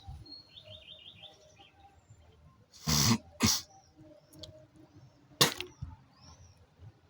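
A smoker coughing twice in quick succession, then a short sharp spit a couple of seconds later. Birds chirp faintly in the background.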